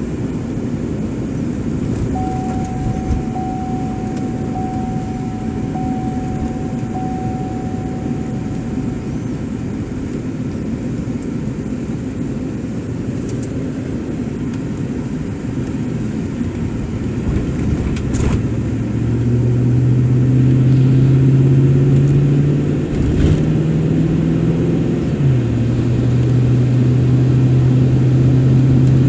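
Steady road and engine noise heard from inside a moving car. A faint high tone sounds for several seconds near the start. From about two-thirds of the way in, a strong steady low hum sets in and briefly steps up in pitch before settling back.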